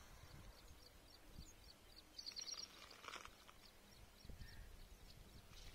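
Near silence: faint outdoor ambience with small birds chirping, including a quick run of chirps about two seconds in.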